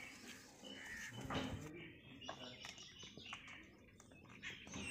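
Birds chirping faintly, with a few scattered light clicks.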